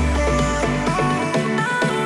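Instrumental background music: quick repeating plucked notes over a deep bass note that holds for about the first second.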